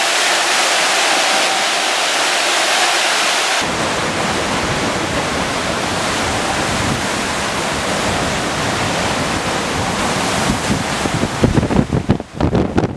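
Hurricane storm-surge floodwater rushing past, a steady loud hiss. About three and a half seconds in it changes to a fuller rush of surging water and hurricane wind, and near the end strong gusts batter the microphone in irregular thumps.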